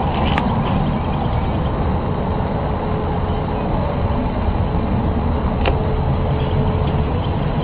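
A steady low rumble with a faint steady hum running through its middle and a few sharp clicks. It is the unexplained noise that residents recorded going on and off for hours.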